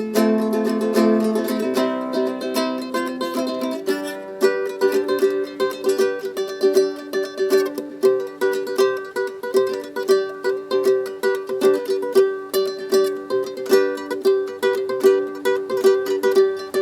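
Yamaha GL1 nylon-string guitalele being played: chords ring for about the first four seconds, then a quicker run of picked notes.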